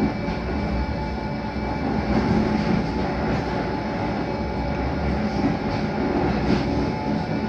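Blackpool tram running at speed, heard from inside: a steady rumble of wheels on rail with a steady motor hum, and a few faint clicks from the track.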